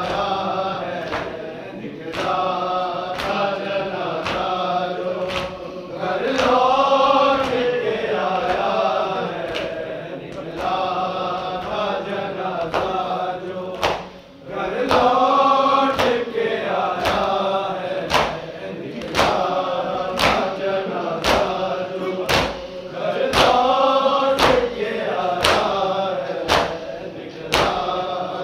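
Voices chanting a noha, the Shia lament, in sung phrases. Sharp slaps keep time about once a second, typical of matam chest-beating.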